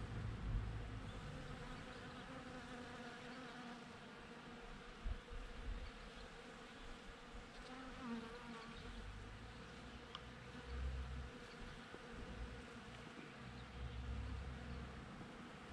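Bees buzzing as they forage on flowers, a steady hum that wavers a little in pitch, with low rumbles coming and going underneath.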